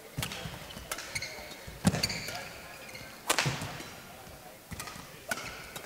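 Badminton rally: several sharp racket-on-shuttlecock hits, the loudest about two and three seconds in, with shoes squeaking briefly on the court mat between them.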